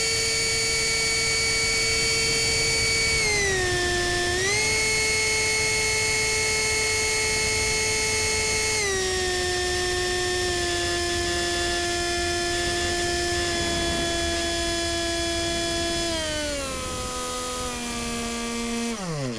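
Onboard sound of a 64 mm electric ducted fan (GWS fan unit with a Cyclone Power CP400 brushless motor) whining steadily in flight. Its pitch dips briefly about three seconds in and comes back, then steps lower at about nine seconds and again near the end as the throttle is eased back, and the fan winds down sharply in the last moment.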